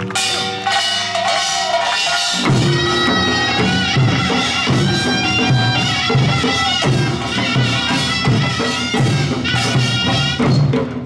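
Korean pungmul farmers' band playing: small hand gongs clanging with a reedy wind melody over them, and drums coming in on a steady beat about two and a half seconds in.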